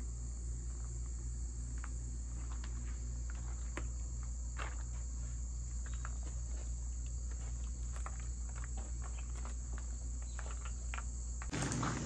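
Steady high chorus of insects chirping, crickets by the sound, over a low steady hum, with scattered faint ticks; the background changes abruptly near the end.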